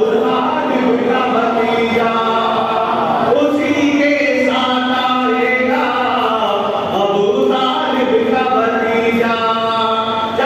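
Several voices chanting together in a continuous melodic recitation, phrase after phrase.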